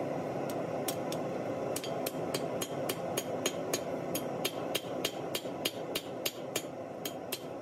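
Hand hammer striking red-hot Damascus steel on an anvil, sharp ringing blows at about three a second in a steady rhythm, over a steady background rush.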